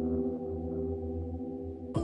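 Background music: a held chord of steady tones over a low bass, with a brighter new section coming in right at the end.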